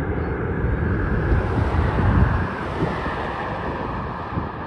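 Jet engine noise from a Cirrus Vision Jet's single Williams FJ33 turbofan as the jet climbs away after takeoff, mixed with wind buffeting the microphone. The low rumble eases a little about two and a half seconds in.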